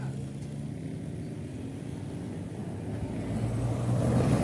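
Road vehicle engine running as it goes by, a low steady hum that grows louder in the last second or so as it comes closer. No musical horn sounds.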